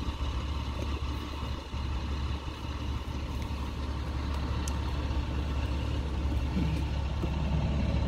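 Steady low hum of an engine running at idle.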